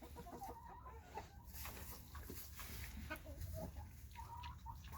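Chickens clucking softly, a scattering of short calls.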